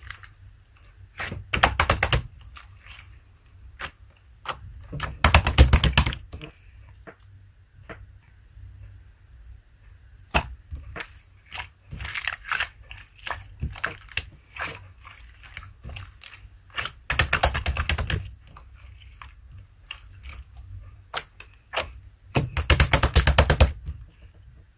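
Clear slime being squished and pressed by hand, giving sticky clicks and pops. Four times it breaks into a quick run of crackling pops lasting about a second, and these are the loudest moments.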